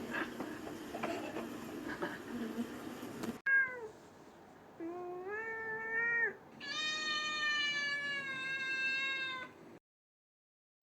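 A noisy, busy stretch cut off abruptly, then an animal's drawn-out, pitched cries: a short falling one, a longer one, and a last one of about three seconds with a slightly falling pitch.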